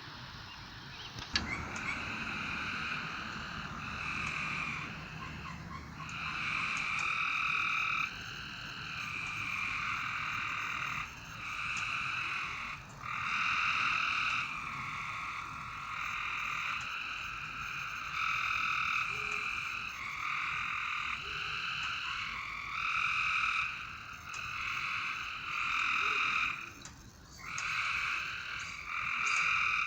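A chorus of frogs calling at night, a steady high-pitched calling that swells and dips every second or two, with a brief lull near the end. A sharp click sounds about a second in.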